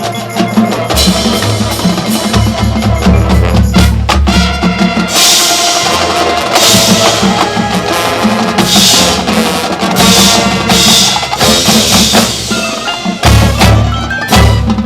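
High school marching band playing: held low brass chords under drums and mallet percussion, with several bright crashes through the middle.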